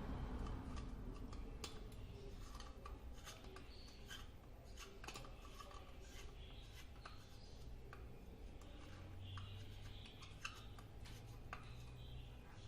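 Faint handwork noise: scattered small clicks and light rubbing over a steady low hum.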